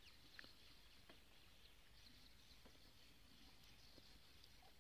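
Near silence: faint outdoor ambience with a few brief, distant bird chirps over a faint steady insect hum.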